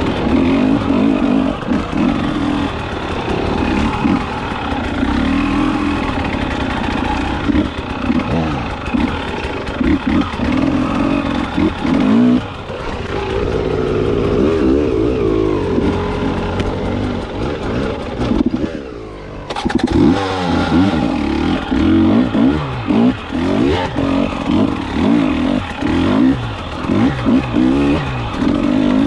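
KTM 300XC two-stroke dirt bike engine revving up and down over and over as the throttle is worked. About 18 seconds in it drops back to a lower, quieter run for a moment, then picks up again with short, repeated blips.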